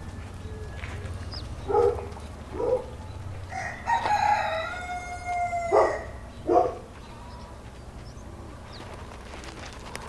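Rooster crowing once, a long call of about two seconds, with short clucks before and after it.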